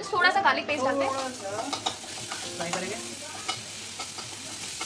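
Chopped onions sizzling in hot oil in a wok, stirred and scraped with a metal spatula. A person's voice is heard briefly at the start.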